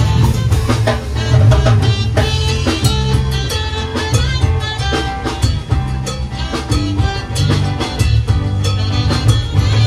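A live band playing up-tempo Latin dance music, with guitar and drum kit keeping a steady, driving beat.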